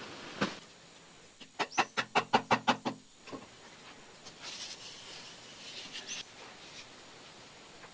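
A quick run of about eight short, pitched clucking calls in a little over a second, an animal call such as a hen's. A single sharp knock comes just before it.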